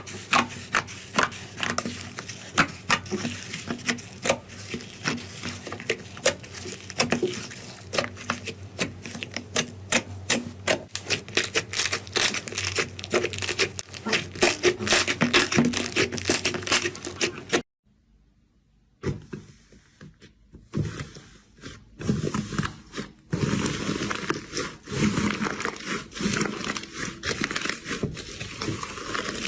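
Slime being squeezed and kneaded by hand, a dense run of small sticky pops and crackles. It breaks off about two-thirds of the way through, and after a moment of silence a second stretch of slime play starts with more pops and squelches.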